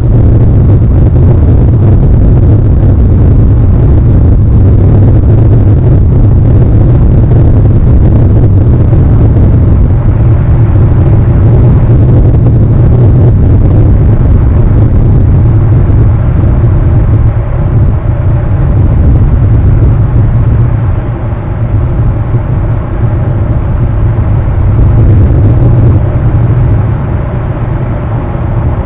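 Loud, steady low rumble of wind and surf at the shoreline, easing slightly about two-thirds of the way through.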